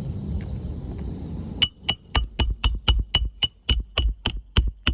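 A metal ladder being climbed down: a quick, even run of ringing metallic clanks, about four a second, begins about a second and a half in after a low rustle.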